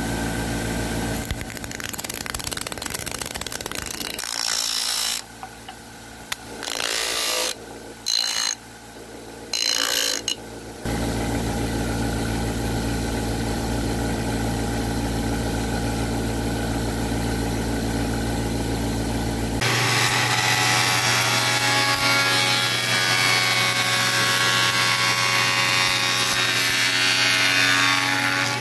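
A motor-driven sanding disc spins with a steady hum while a wooden tenon is pressed against it. The sound drops out abruptly several times in the first half. About two-thirds of the way in it switches suddenly to a spindle moulder's cutter head shaping the edge of a wooden door panel, a louder and harsher cutting noise.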